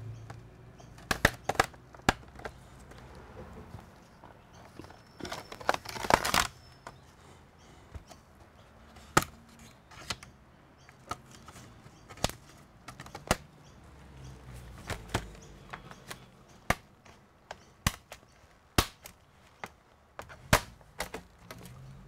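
Snap-fit clips of a Dell Inspiron laptop's plastic bottom cover popping loose one after another as the cover is pried off: a series of sharp clicks, with a longer crackling run about six seconds in.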